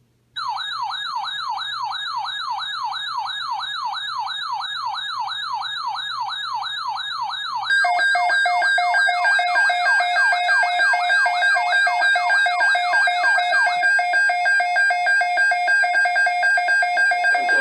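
Electronic siren wailing in a fast up-and-down sweep, about four times a second. About 8 s in, a louder steady siren tone comes in over it, and the sweep fades away in its second half.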